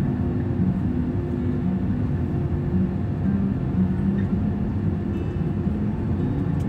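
Steady cabin rumble of an Airbus A321 taxiing after landing, with the engines' low, even hum at idle.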